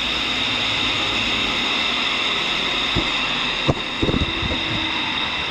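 Tool and cutter grinder running with a steady whine made of several high tones. A few sharp metal clicks and clunks come between about three and four and a half seconds in.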